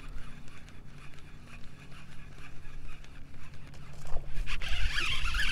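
Fishing reel whirring as a hooked fish is reeled in: a rapid, raspy rattle that starts about four seconds in and grows loud, over a low steady hum.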